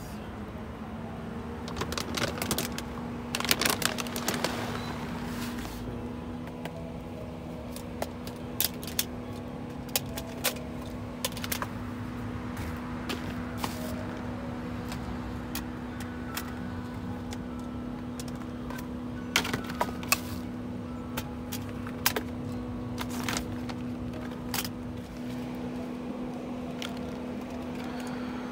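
Scattered rustles, crackles and light metallic clinks of discarded pet-food bags, boxes and cans of cat food being shifted in a dumpster, over a steady low hum.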